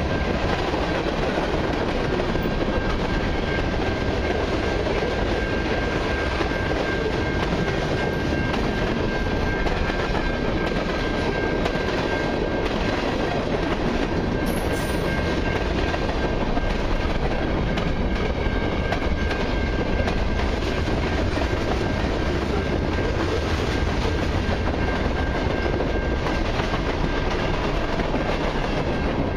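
Freight cars of a long mixed freight train rolling past close by: steady noise of steel wheels running over the rails, with a thin steady high tone above it.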